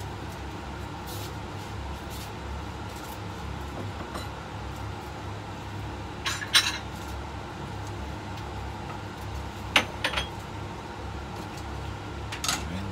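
Chopsticks clinking against a ceramic plate and pan as fried shrimp tempura is lifted and set onto the plate. There are a few sharp clinks about six and a half and ten seconds in, over a steady low hum.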